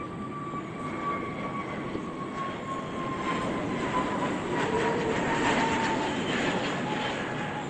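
Jet airliner's engines running: a steady whine that slowly falls in pitch over a hissing rumble.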